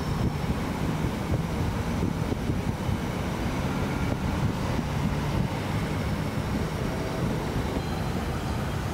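Double-stack intermodal freight train rolling across a steel railroad bridge: a steady low rumble of the container cars' wheels on the rails.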